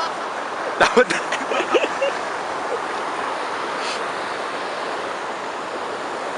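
River water rushing steadily. About a second in come a few sharp knocks and brief voice sounds.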